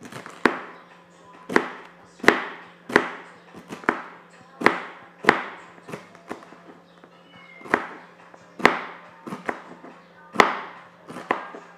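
Knife chopping through celery stalks onto a cutting board: about fifteen sharp chops at an uneven pace, roughly one every half second to a second.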